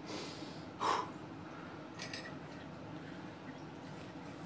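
Short, forceful breaths through the nose, the loudest about a second in, as a lifter braces before a heavy grip pull. Quiet room hiss under them.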